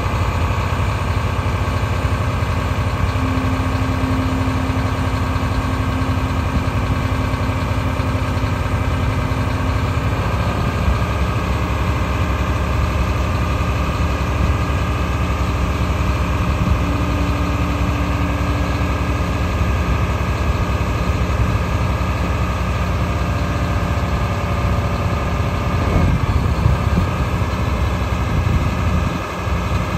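2013 Mack GU713 tri-axle dump truck's diesel engine running steadily as the dump body is raised on its hydraulic hoist; its note shifts about ten seconds in.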